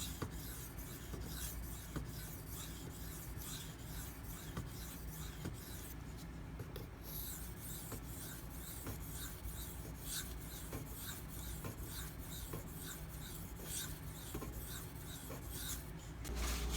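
Spyderco PM2's Maxamet steel blade stroked back and forth across a 2500-grit silicon carbide whetstone: a steady rhythm of short, rasping strokes, a couple a second, with a brief pause about six seconds in.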